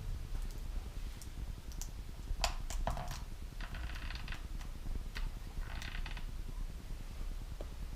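Faint handling noise from the plastic instrument-cluster parts: scattered light clicks and taps, with two short squeaky rubs about three and a half and five and a half seconds in, over a low steady hum.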